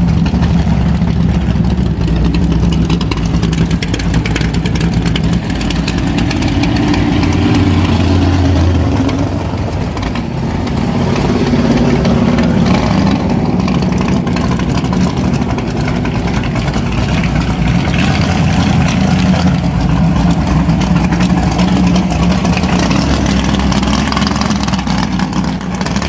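The drag-racing 1956 Ford Thunderbird's 514 cubic-inch Ford V8 running loudly and steadily, rising and falling a little in revs. The car pulls away near the end.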